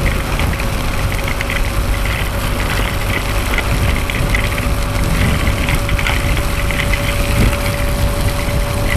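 Motorcycle running at highway speed in heavy rain: a steady rumble of engine, wind and spray, with rain crackling against the microphone and a faint steady hum.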